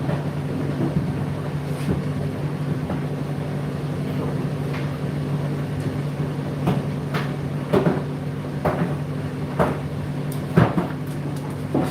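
Laundry machine running with a steady motor hum while its drum turns, the load tumbling and knocking irregularly, several knocks in the second half.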